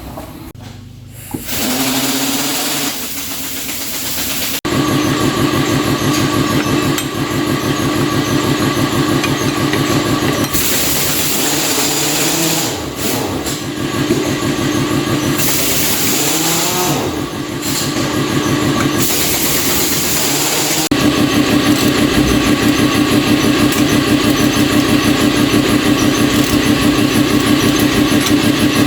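An engine running steadily with a fast, even pulse, in several stretches that change abruptly.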